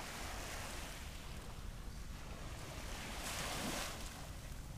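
Surf washing on a beach with wind rumbling on the microphone; the rush of the water swells about three seconds in.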